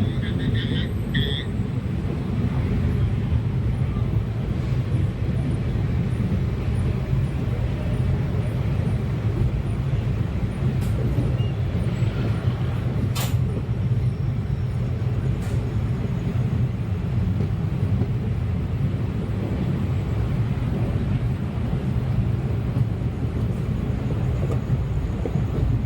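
Moving train running on the track: a steady, even rumble of wheels on rail. A brief pulsing tone sounds in the first second, and a sharp click stands out about 13 seconds in.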